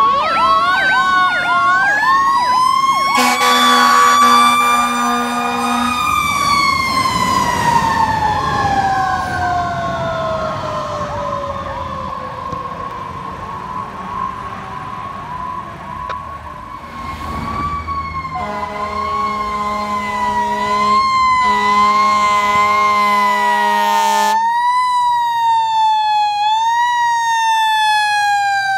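Fire engine sirens on a responding E-One apparatus: a fast yelp at the start, then long slow wails whose pitch falls gradually, broken by air horn blasts at about 3 to 6 seconds and twice more between about 18 and 24 seconds. Near the end a different siren takes over with quick rising and falling sweeps.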